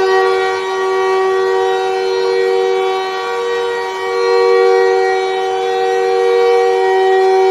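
Arena goal horn sounding one long, steady blast with two low notes held together as a chord, its level swelling and easing slightly.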